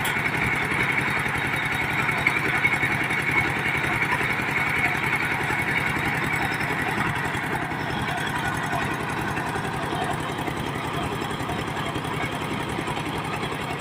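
Diesel engine of a mobile sawmill running steadily at a constant speed, with a higher-pitched hiss over it that weakens about halfway through.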